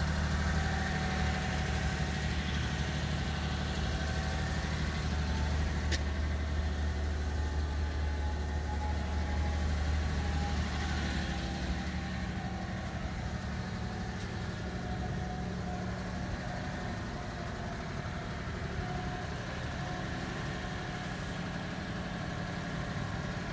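Japanese mini dump truck's small gasoline engine idling steadily, its low hum dropping a little about halfway through. A single sharp click about six seconds in.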